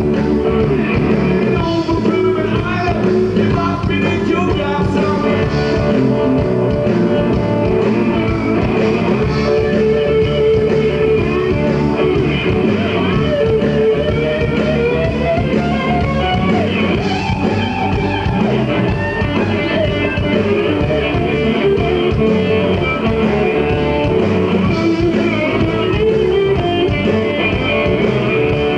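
Live rock band playing loudly on stage: electric guitars with singing.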